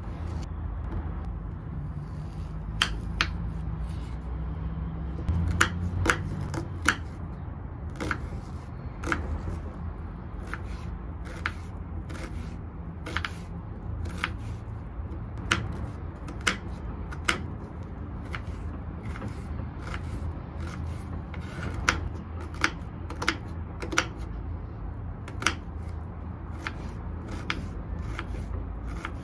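Small kitchen knife cutting an onion on a wooden cutting board: irregular sharp taps as the blade meets the board, roughly one every second or so, over a steady low rumble.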